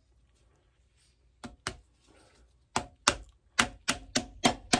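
Hammer driving nails into a stacked leather heel base: two sharp taps, a short pause, then a steady run of blows about three a second.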